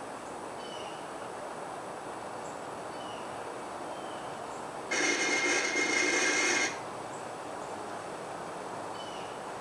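Electric buzzing sound effect from a homemade flux capacitor prop: a loud, harsh buzz lasting about two seconds in the middle that cuts in and out abruptly, over a steady hiss.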